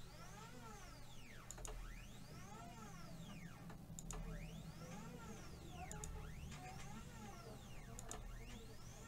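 Faint whine of a 3018 mini CNC's stepper motor driving an axis, rising and falling in pitch over and over about every two seconds, with light clicks. The motor is straining because it can't move on its clamped-down mount.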